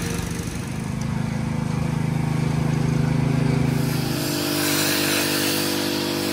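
Small petrol engine of a pressure washer running steadily. About four seconds in, the engine note changes and a steady hiss of water spray from the wand joins it.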